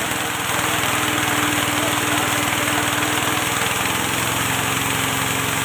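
Small engine running steadily under load, driving a machine that mills rice into bran (bekatul). It gets slightly louder about half a second in.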